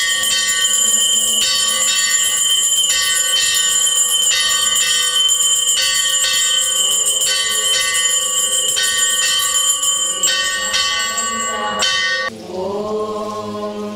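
Temple bells ringing continuously, re-struck about every second and a half, during the arati lamp-waving of a Hindu puja. About twelve seconds in the ringing stops and voices begin chanting.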